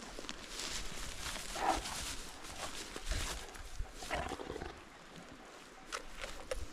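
Rhodesian Ridgeback play-growling while it mouths a pony's head, in short rough growls about two and four seconds in, over rustling grass and wind. A few light knocks come near the end.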